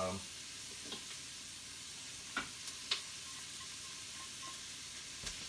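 Bacon, onions and garlic sizzling in bacon grease in an Instant Pot's inner pot on sauté mode, a steady faint hiss, with a few light clicks from stirring against the pot.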